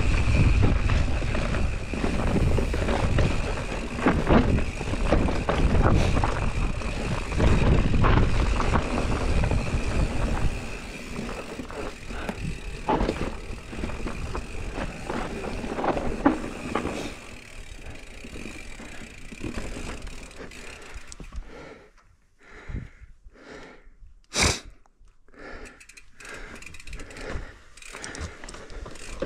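Mountain bike rolling fast down a dirt trail: tyre noise over dirt and roots with chain and frame rattle, under wind rumbling on the microphone. After about twenty seconds it gets much quieter, leaving separate knocks and clicks and one sharp crack.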